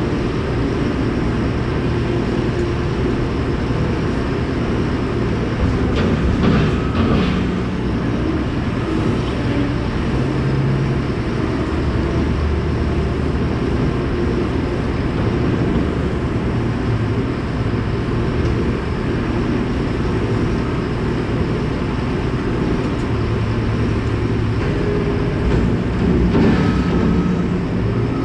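Supreme vertical feed mixer wagon running loaded with forage, its auger churning the feed with a steady low mechanical rumble. Two louder, brief noisy bursts come about six seconds in and again near the end.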